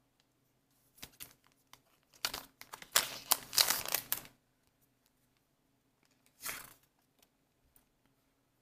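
Crinkling of a foil trading-card booster pack wrapper, already cut open, as the cards are pulled out: a few light rustles, a longer dense burst of crinkling in the middle, and one short burst near the end.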